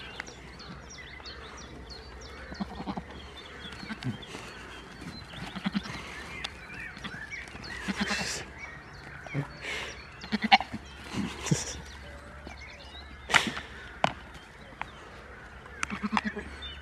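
Goats bleating now and then, with scattered short knocks and scuffs.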